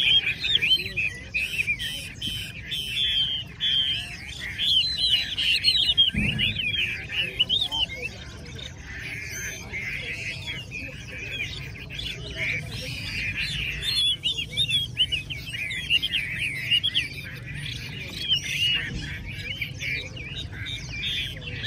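Many caged Chinese hwamei singing at once, an overlapping tangle of quick, varied whistled phrases that never lets up. A single low thump comes about six seconds in.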